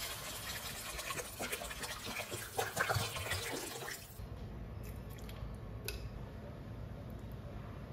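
Water poured in a stream into a stainless steel wok of frying green peas, splashing for about four seconds. It then cuts to a much quieter steady hiss with a few light clicks.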